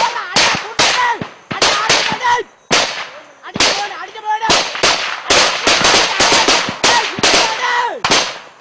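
Small-arms gunfire in combat: irregular single shots and short rapid bursts, with a brief lull about three seconds in. Men's voices shout between the shots.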